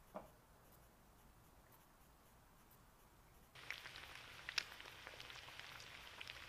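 Near silence with one brief tap near the start. A little past halfway, breaded fish frying in hot oil in a cast-iron skillet comes in: a steady sizzle with small crackles and pops.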